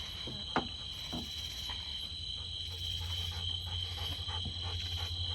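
Steady high-pitched insect chorus, with a low hum underneath and a short knock about half a second in.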